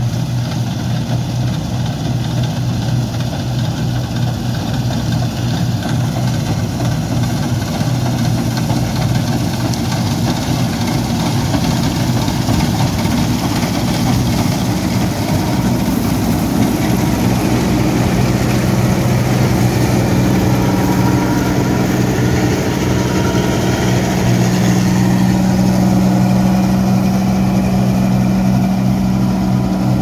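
1977 New Holland Clayson S1540 combine harvester running steadily while harvesting winter barley: a constant engine and machinery hum that grows somewhat louder in the second half.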